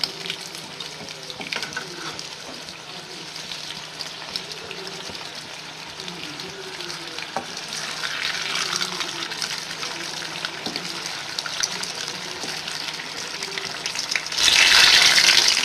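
Medu vadas deep-frying in hot oil in an aluminium kadai: a steady sizzle while a slotted spoon moves them about in the oil. About a second before the end the sizzling turns suddenly much louder.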